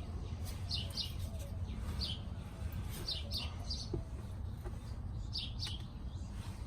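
Small birds chirping: short, high chirps that sweep downward, often in quick pairs, every second or so over a steady low background rumble.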